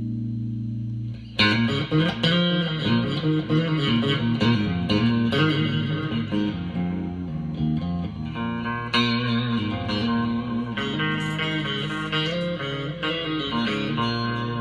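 Electric guitar music: a sustained low chord rings, then about a second and a half in a busy run of quickly picked notes begins and carries on.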